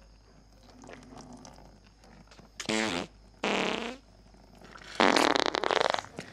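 Three loud farts, a short one with a falling pitch, another about half a second later, and a longer rasping one about five seconds in, the loudest.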